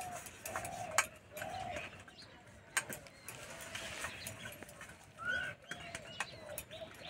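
Doves cooing over and over in the background, short repeated calls, with a brief rising bird chirp a little past five seconds in. Two sharp clicks, one about a second in and one near three seconds, stand out above the cooing.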